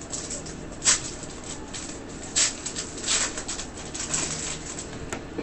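Panini Prizm basketball trading cards and their pack wrappers being handled: a string of short, irregular rustles and flicks, the loudest about a second in.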